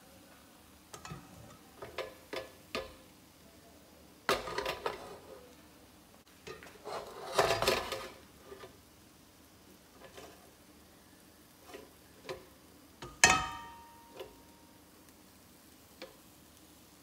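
Scattered clinks and knocks of a ladle against metal cookware and a batter pot. There is a longer scraping rattle a little before halfway, and one sharp metal clank that rings briefly about three-quarters of the way through.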